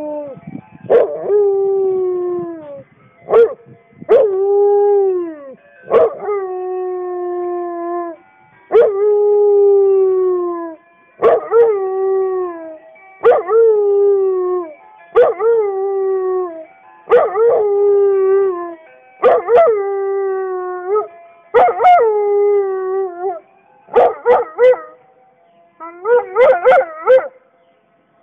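Chesapeake Bay Retriever howling over and over: about a dozen drawn-out howls, roughly one every two seconds, each starting sharply, held on one pitch and sagging at the end. Near the end the howls break into quicker, shorter yelps.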